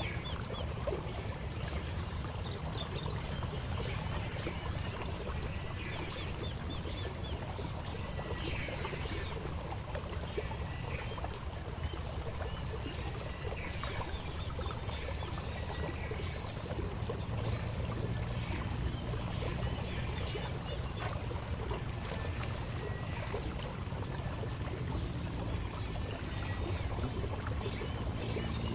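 Outdoor ambience of short, scattered bird chirps, with a quick run of them around the middle, over a steady high-pitched drone and a steady low rumble.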